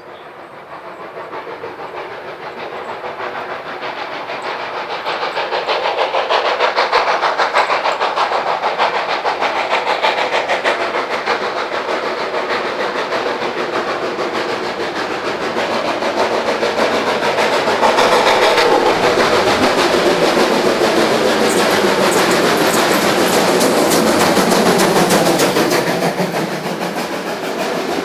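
Steam locomotive working a train up a gradient, its exhaust beats and running gear growing louder as it approaches, then staying loud as the train goes by with rail clatter.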